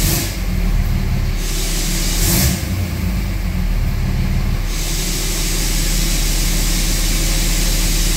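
Dodge Ram 3500's 5.9 L Cummins diesel idling after a restart, with a steady hiss over the low engine note that drops out twice in the first five seconds and a short burst of hiss about two and a half seconds in. The idle is smoothing out after the crankshaft position sensor plug was replaced.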